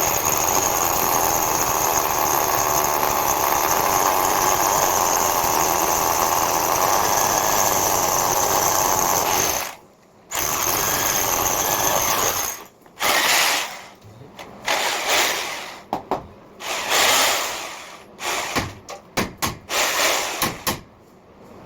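Electric drill turning a concrete core hole saw, cutting into a brick and concrete wall. It runs steadily for about ten seconds, stops briefly, runs again for a couple of seconds, then comes in a series of short bursts as the trigger is pulsed.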